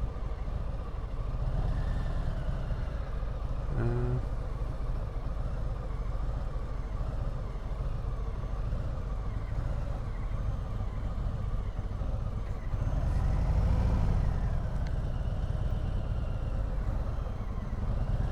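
Harley-Davidson Sport Glide's Milwaukee-Eight 107 V-twin running steadily at low revs through its Screamin' Eagle exhaust, with a short pitched blip about four seconds in and the engine note swelling, as if pulling away, around thirteen seconds in.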